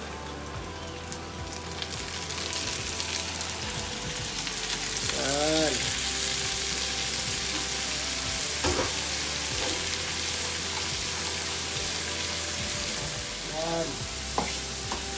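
Food sizzling as it fries in hot oil in a pan for pad thai. The sizzle swells about two seconds in, after ingredients are added, and then holds steady.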